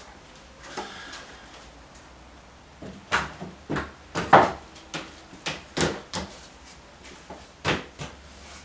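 Wooden boards knocking and clattering against each other as timber backrest parts are set into place by hand. A run of sharp wooden knocks starts about three seconds in, the loudest near the middle.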